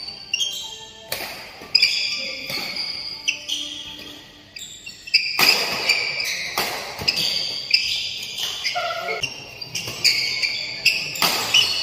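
Badminton doubles rally: sharp smacks of rackets striking the shuttlecock and short high squeaks of shoes on the court floor, echoing in a large hall. The play goes quieter for a moment around the middle and then picks up again.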